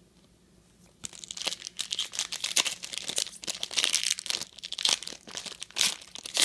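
A trading card pack's wrapper being torn open and crinkled by hand, an irregular run of sharp crackles starting about a second in.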